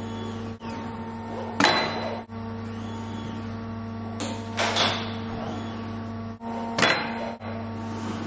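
Robot assembly cell at work: a steady electrical hum with three sharp mechanical clacks, one every two to three seconds, as the Adept Cobra i600 SCARA robot moves and handles parts.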